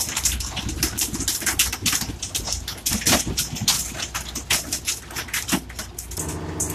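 Rapid, irregular splashing and slapping of water and fish around a pole-and-line fishing boat's stern. About six seconds in, a steady droning hum with several tones comes in.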